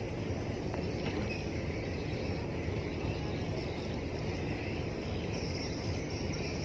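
Steady running noise of the fishing boat's engine, used in place of hand hauling to pull the trawl net aboard.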